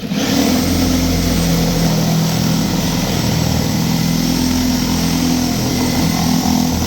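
Milwaukee Sawzall reciprocating saw cutting through the steel roof of a car. It starts abruptly and runs steadily under load, with a low, even buzz.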